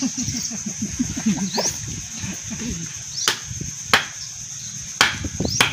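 A wooden stick striking the back of a machete to drive the blade through a marlin's hard backbone: four sharp chopping knocks in the second half, irregularly spaced.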